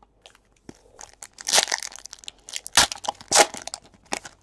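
Trading cards and their packaging being handled: crinkling and a run of sharp clicks and snaps, loudest about a second and a half in and twice more around three seconds in.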